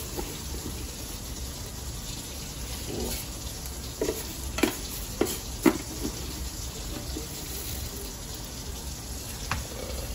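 Large pot of coconut-milk broth boiling on the stove with a steady bubbling hiss, while rice is scooped in: a handful of sharp clicks and knocks of a plastic scoop against the rice container, mostly in the middle of the stretch.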